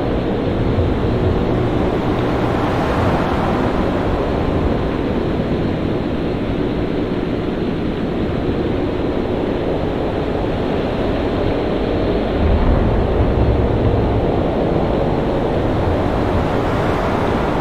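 Storm at sea: steady wind and crashing waves, heaviest in the low end, swelling briefly about twelve seconds in.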